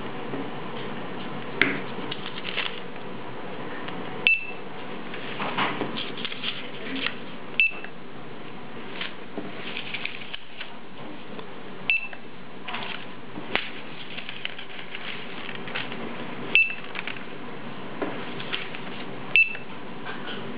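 Sumlung SL-BA10 handheld laser barcode scanner giving five short, high beeps a few seconds apart, each beep the sign of a barcode read successfully. Between beeps, paper labels are handled, with light clicks and rustling.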